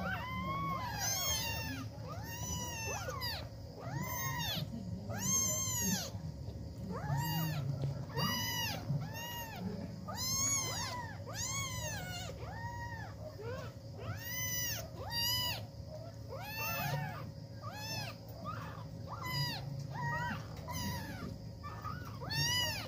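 Several young kittens mewing over and over. The calls are short and high-pitched, each rising then falling in pitch, coming about one to two a second and often overlapping.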